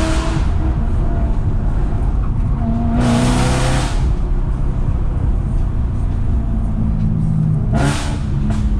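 BMW E92 M3's V8 engine heard from inside the cabin, revving up hard about three seconds in and then pulling steadily. Near the end there is a short, sharp rev blip with a few crackles, as the car drops from third to second gear.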